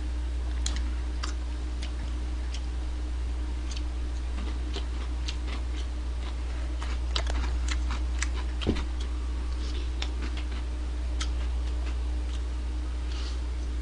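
Close-up eating of fried chicken: irregular small crunches, clicks and mouth smacks as pieces are bitten, chewed and pulled apart, over a steady low hum.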